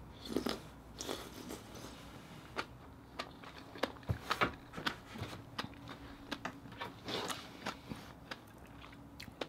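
Close-miked eating sounds: a baked oyster topped with fish roe and green onion is sucked from its half shell and chewed. Throughout there are irregular wet smacks and clicks, the loudest just after the start and about four seconds in.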